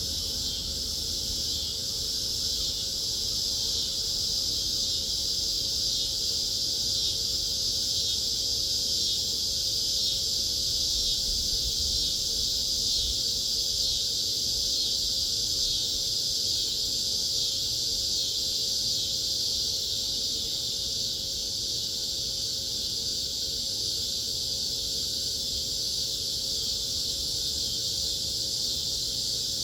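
Chorus of cicadas buzzing: a continuous high-pitched drone with a fine, rapid pulse, swelling slightly in the middle.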